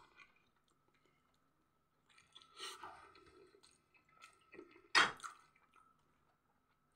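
A person chewing a bite of homemade pizza with the mouth closed, in short bursts between quiet gaps. About five seconds in there is one sharp, loud crack.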